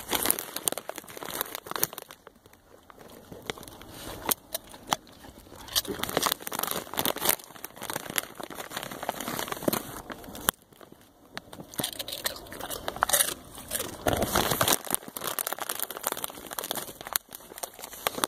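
Chip bag crinkling and rustling in irregular spells, with scattered sharp clicks.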